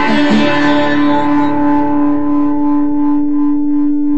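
Guitar music ending: a last strummed chord right at the start. The upper notes fade over the next couple of seconds, while one low note holds on, steady and unfading like a drone.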